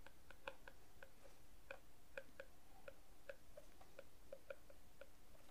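Faint, irregular clicking of a stylus tip tapping on a tablet screen during handwriting, a few clicks a second.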